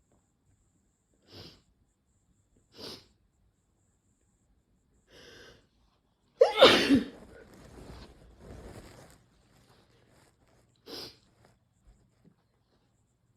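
One loud sneeze about halfway through, with a voiced cry that drops sharply in pitch and trails off into a couple of seconds of breathy exhaling and sniffling. It is set off by Chhinkni, a Nepali herbal sneezing powder, and comes after a few short, sharp sniffs and an in-breath. Another sniff follows near the end.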